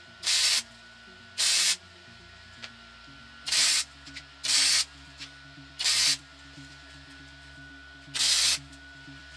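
Flux-cored wire welder tack-welding steel: six short bursts of crackling arc, each about half a second, with pauses between them.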